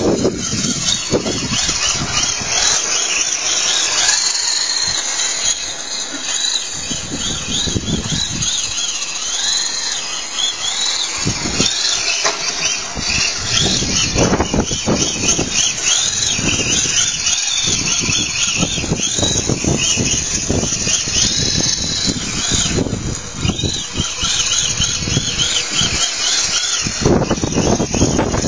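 Electric motor of a Tamiya TA01 radio-controlled drift car, a high whine that keeps rising and falling in pitch as the throttle is worked while the car slides around on tarmac.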